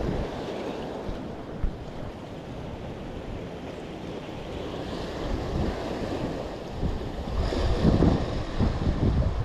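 Sea waves washing against the boulders of a rock jetty, with wind buffeting the microphone. The wash swells louder about eight seconds in.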